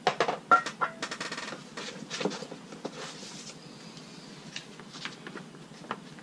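Paper and cardboard packaging being handled: rustling and crinkling with several sharp knocks in the first second, easing to quieter paper rustles and a few ticks as the instruction sheets are unfolded.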